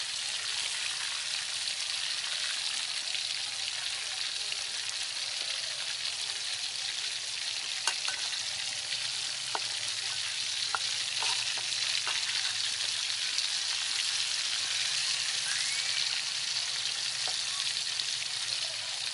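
Coiled pieces of snake frying in hot oil in a steel wok: a steady sizzle, with a few sharp clicks around the middle.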